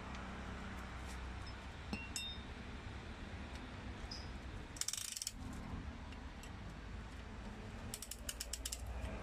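Ratchet-type piston ring compressor being worked around a piston, its pawl clicking in short runs: a quick burst about five seconds in and a run of about eight clicks near the end, as the band closes the rings for fitting the piston into the bore. A steady low hum sits underneath.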